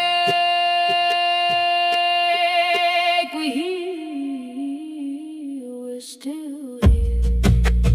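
Background music with a solo singing voice: one long high note held for about three seconds, wavering at its end, then a lower, ornamented line; drums and low instruments come back in near the end.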